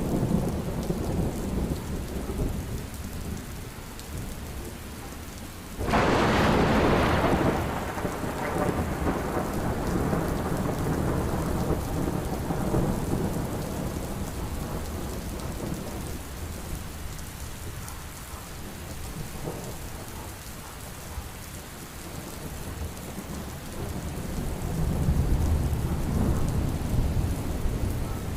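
Heavy rain falling steadily, with a sudden loud thunderclap about six seconds in that rolls away over several seconds, and another low roll of thunder near the end.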